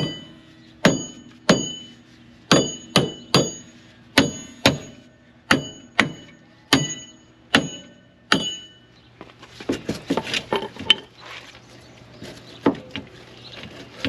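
About a dozen ringing hammer blows from a small sledgehammer on the seized rear wheel hub assembly of a 2004 Saturn VUE AWD, knocking it loose. The blows stop after about eight seconds, followed by lighter metallic clinks and rattling as the hub is worked by hand.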